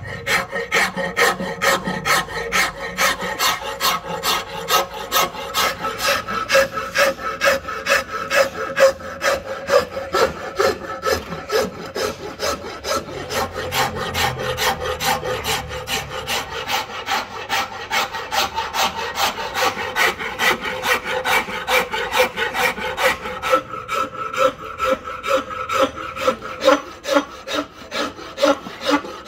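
Hand rasp scraping along a rosewood axe handle clamped in a vise, shaping the wood in a steady rhythm of about two strokes a second.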